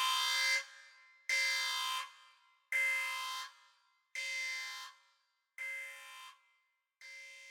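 Spaceship alarm sound effect: a pitched klaxon tone sounding in short repeated blasts, about one every second and a half, each quieter than the last as the alarm fades out.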